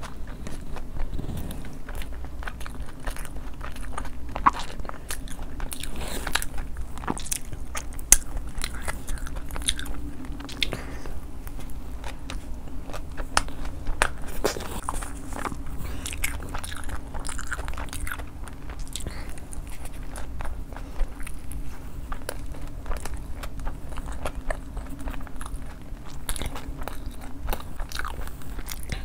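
Close-miked eating: a person biting into and chewing crunchy food, with repeated crisp crunches and crackles over a steady low hum.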